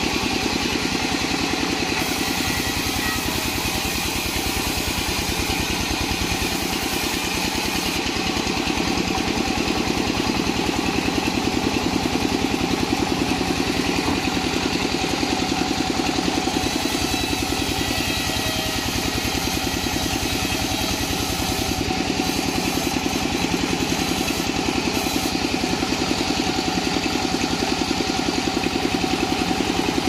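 Engine-driven vertical band-saw mill running steadily with a quick, even engine beat while waru planks are ripped lengthwise.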